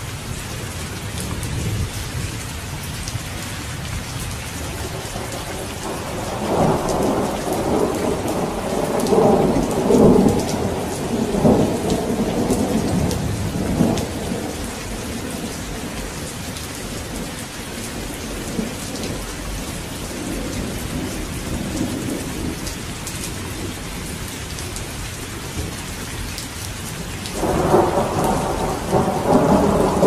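Steady rainfall with rolling thunder: a long rumble swells about six seconds in and lasts several seconds, and another rumble begins near the end.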